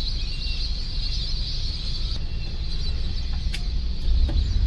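Houseboat engine running with a steady low rumble that grows louder about four seconds in as the throttle is opened. Faint bird chirps and two sharp clicks near the end.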